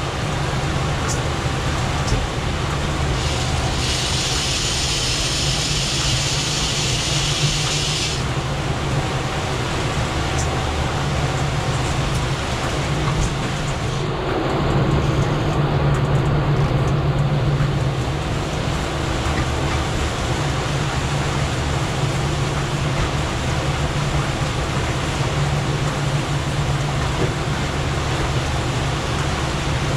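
Twin outboard motors running steadily under way, a low even hum with the rush of wind and water over the boat. A few seconds in, a loud high hiss joins for about four seconds, and the engine hum swells briefly in the middle.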